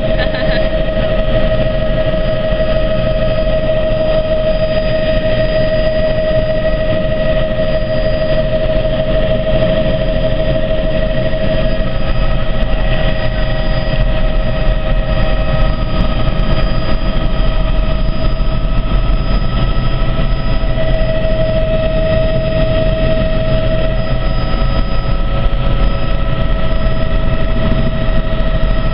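Helicopter in flight, heard from on board: a loud, steady drone of engine and rotor with a constant whine.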